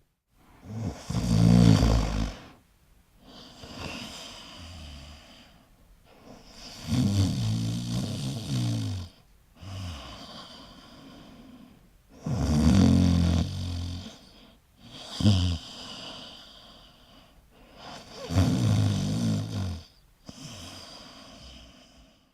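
Koala snoring: four loud, deep, rasping snores about six seconds apart, each followed by a quieter, softer breath.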